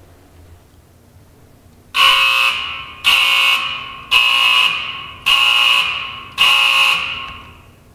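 High-voltage warning alarm sounding five times about a second apart, each blast starting sharply and fading away: the signal that the 75,000-volt rig is about to be switched on.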